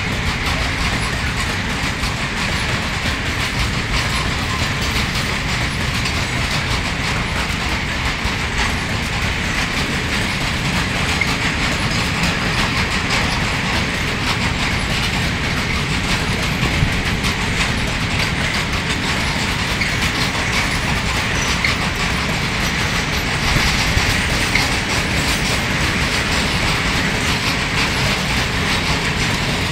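A train's wagons rolling steadily along the track, with continuous rumble and wheel-on-rail noise that neither fades nor stops.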